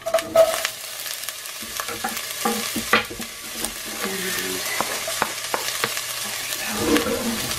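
Diced onions dropping into hot oil in an enamelled Dutch oven and sizzling steadily, with occasional sharp clicks and scrapes as they are moved around in the pot.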